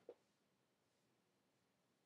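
Near silence: room tone, after one brief faint sound right at the start.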